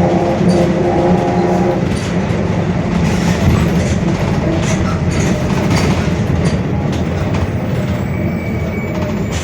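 Mercedes-Benz OF-1721 bus under way: a steady mechanical rumble with scattered rattles, and a whining tone from the growling differential that fades out about two seconds in.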